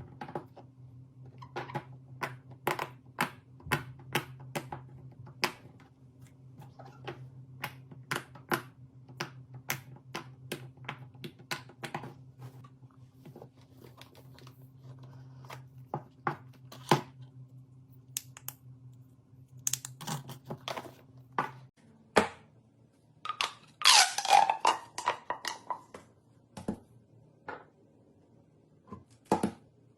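Hands handling craft materials, making a run of sharp, irregular clicks and taps over a steady low hum; the hum stops about two-thirds of the way through. A brief, louder rustling burst follows a couple of seconds later.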